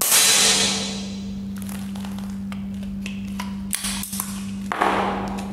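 Precihole NP60 Draco break-barrel nitro-piston air pistol firing a .177 pellet: a sharp report at the start that rings out in the range for about a second. Then a run of metallic clicks and a short rasp near the end as the pistol is broken open, cocked and reloaded.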